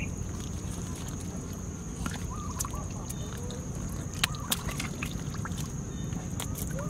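Catfish splashing and thrashing in shallow muddy water, with several sharp slaps and splashes over a steady low background.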